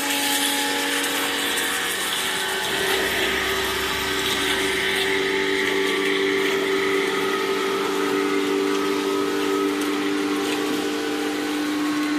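Pressure washer running with the spray gun open: a steady motor and pump hum with a hiss of spray over it.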